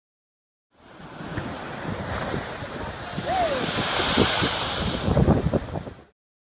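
Stormy sea waves crashing and splashing, with wind buffeting the microphone. The sound cuts in about a second in and stops abruptly near the end, with the heaviest crashes in the last couple of seconds.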